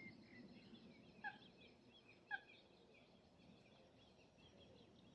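Faint outdoor birdsong: a thin background of small twittering chirps, with two short, slightly louder falling calls from a bird about a second apart, near the start.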